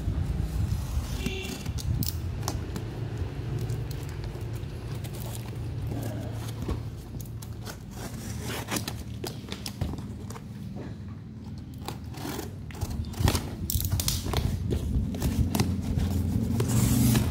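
A small knife slitting packing tape along the seams of a cardboard box: irregular scraping and crackling of the tape as the blade is drawn through. Near the end the cardboard flaps are handled and pulled open, with quick rustles and clicks.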